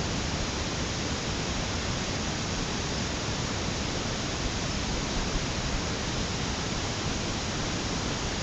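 Steady, even rushing noise of outdoor natural ambience, with a low rumble and no distinct calls or events.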